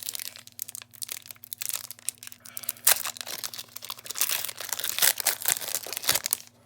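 Foil wrapper of a Pokémon card booster pack crinkling and crackling as it is handled, with cards being handled; densest and loudest over the second half, dying away near the end.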